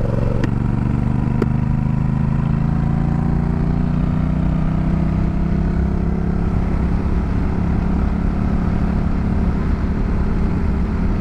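Honda Rebel 1100's parallel-twin engine running under load as the bike accelerates. Its pitch rises slowly over the first half, then holds steady at cruising speed, over a constant rush of wind noise.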